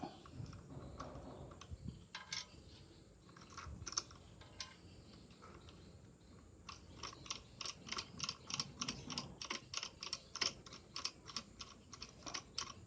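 Clicking from hand work on the scroll saw's blade clamp: a few scattered sharp clicks, then from about seven seconds in a steady run of about three or four sharp clicks a second.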